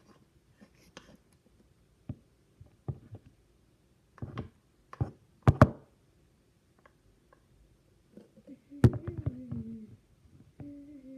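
Scattered knocks and taps of a pencil against a glue container as leftover glue and dried slime are scraped out, the loudest pair about halfway through. A short hummed voice follows a last knock near the end.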